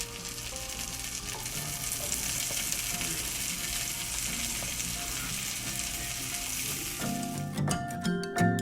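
Food frying in a hot pan, a steady sizzle. Background music runs faintly underneath and grows louder near the end.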